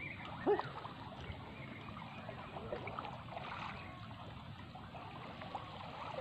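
Water lapping and trickling right at the microphone, which sits at the water's surface, with one brief louder sound about half a second in.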